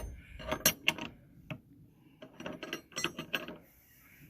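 A hand ratchet clicking in several short runs with pauses between, as a bolt in the hoop-house frame boards is worked.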